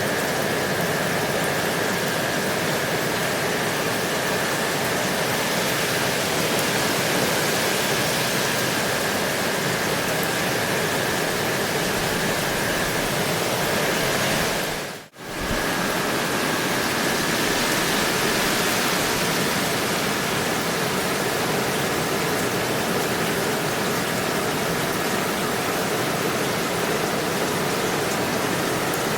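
Steady, dense rain falling, a continuous even hiss. The sound dips out briefly about halfway through and fades straight back in.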